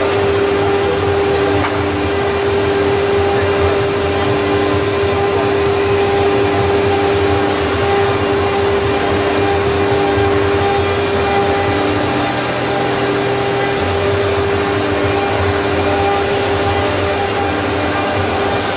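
Stone CNC router spindle running while its cutter engraves a black stone tombstone slab: a steady whining tone over an even hiss, with a second, lower tone that comes and goes.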